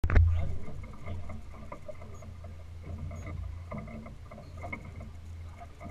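A sharp knock right at the start, then the steady low rumble of a small boat out on the water, with scattered small knocks and clicks.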